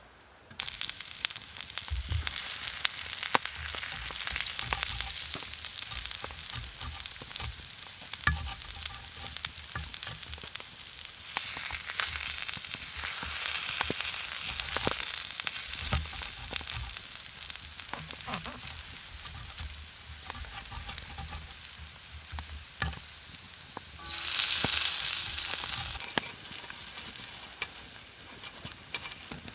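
Food frying in a pan, a steady sizzle with scattered crackles and pops and occasional low knocks; the sizzle swells briefly near the end.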